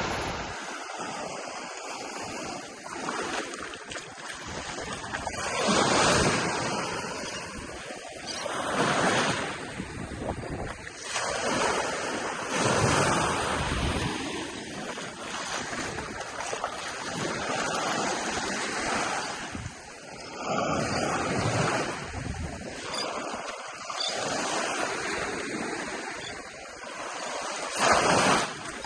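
Gulf of Mexico surf breaking and washing up the beach, each wave swelling and falling away every few seconds, with a louder break near the end. Some wind buffets the microphone.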